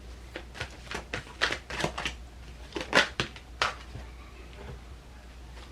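Tarot deck being shuffled and handled: a run of irregular card snaps and clicks for about four seconds, then quieter, over a steady low hum.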